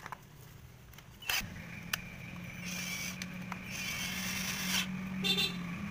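Casing screws of an electric drill being driven back in with a screwdriver bit: scattered clicks and a stretch of scraping over a steady low hum that sets in about a second and a half in.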